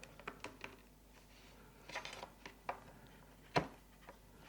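Faint scattered clicks and a soft scrape from small opening tools being worked at the glued edge of an iPad mini 4's screen, with one sharper click near the end.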